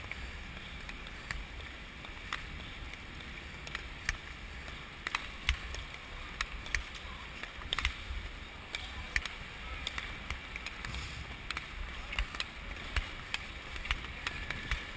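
Speed skates striding on rink ice: a steady hiss and low rumble of the blades and of air on the moving microphone, with sharp clicks about once or twice a second.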